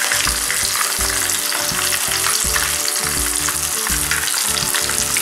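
Batter-coated cuttlefish pieces deep-frying in hot oil in a wok: a steady crackling sizzle.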